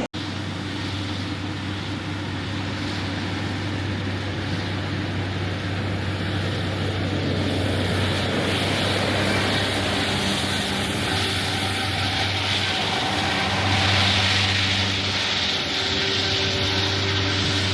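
New Holland tractor running steadily while cutting hay with its rear-mounted hay mower: a constant low engine hum under a broad rushing mechanical noise, swelling slightly a few times.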